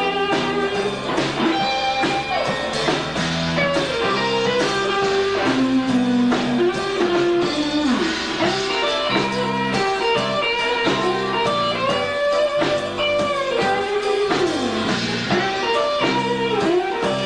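A rock band playing live with no vocals: electric guitar lead lines with bent notes over bass, rhythm guitar and drums, in a bluesy style.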